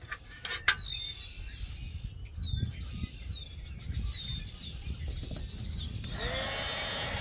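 A bird chirps several short calls over a low wind rumble on the microphone, after a couple of knocks near the start. About six seconds in, a handheld craft heat gun switches on with a short rising whine and runs with a steady blowing hiss.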